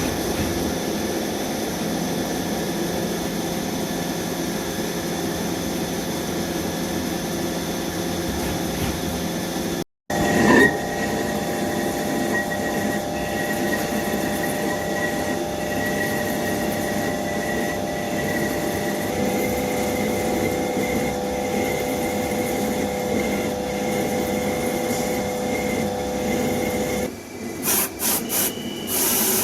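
CNC machine running steadily with whining tones over the cutting noise. The sound drops out for an instant about ten seconds in, then carries on, with a few short breaks near the end.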